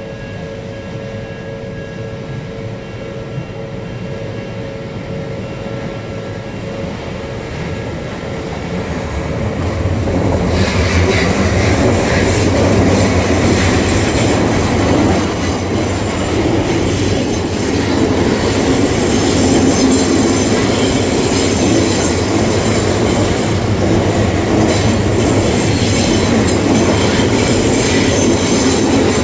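A level-crossing warning signal sounds steady tones. About ten seconds in, an Odakyu electric train arrives and passes through the crossing, its wheels clattering over the rail joints with some wheel squeal, loud for the rest of the time.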